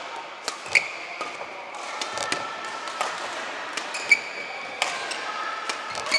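Badminton rally: sharp racket-on-shuttlecock hits about once a second, the strongest with a short ringing ping, together with fainter hits from other courts.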